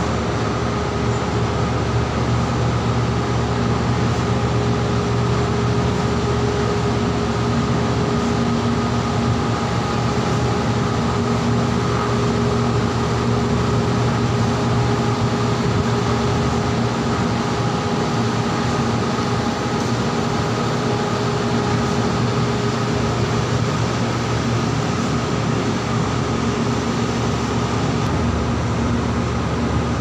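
Heavy diesel machinery aboard a floating crane running steadily: a loud, unchanging drone with a constant hum.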